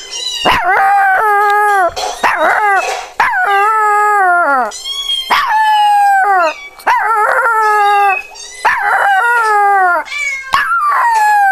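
A domestic cat meowing over and over: about seven long, drawn-out meows with short gaps between them, many sliding down in pitch at the end.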